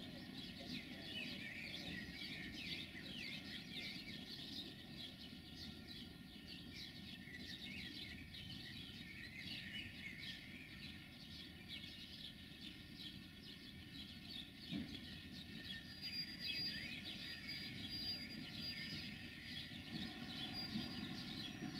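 Small birds chirping busily and continuously, over a faint low rumble from a freight train moving away in the distance.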